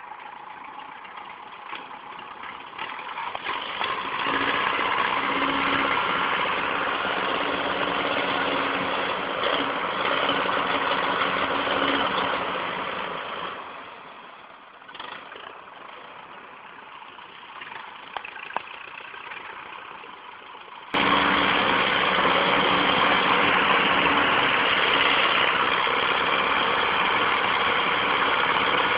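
Belarus tractor's diesel engine running hard under a heavy load with a steady drone. It grows loud about four seconds in and eases off for several seconds midway. Near two-thirds through it suddenly comes back loud.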